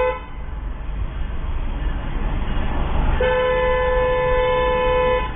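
Car horn held in one steady blast of about two seconds, starting about three seconds in, over a low steady road rumble. A short horn toot cuts off right at the start.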